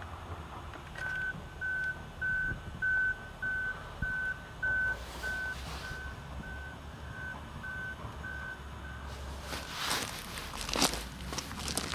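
Backup alarm of a reversing vehicle: a single-pitch beep repeating about one and a half times a second, some fourteen beeps, louder at first and fainter after about five seconds, stopping about nine seconds in. Near the end a few sharp crunching, crackling noises.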